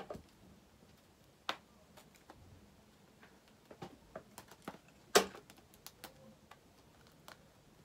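Scattered small clicks and taps of hands handling things at close range, irregular, with one sharper tap about five seconds in.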